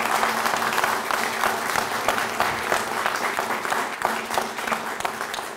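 Audience applauding: a dense spread of many hands clapping, easing off near the end.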